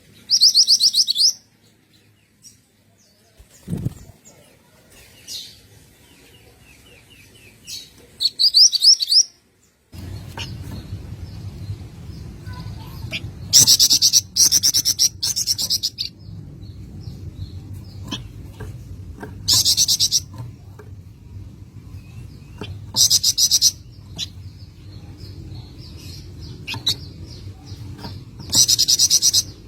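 Small songbird singing loud, rapid high trills, each lasting one to two seconds and repeated every few seconds, with fainter chirps between. From about ten seconds in a low steady hum runs underneath.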